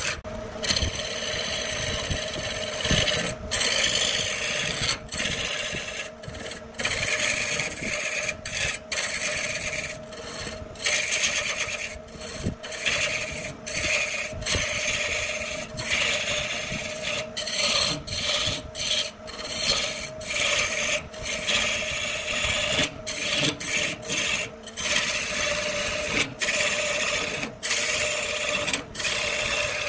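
Woodturning gouge cutting a spinning wooden cylinder on a lathe: a continuous rough scraping hiss of shavings tearing off, broken by many short pauses, over a steady hum.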